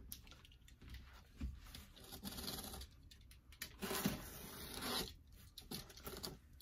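Utility knife slicing through the packing tape along the top seam of a cardboard box, a few drawn-out scratchy cutting strokes.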